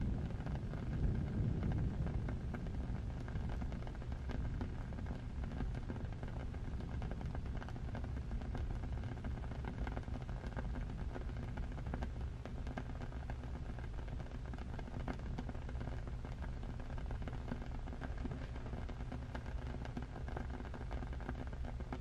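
Steady rain ambience: an even hiss over a low rumble, dotted with many small ticks and crackles.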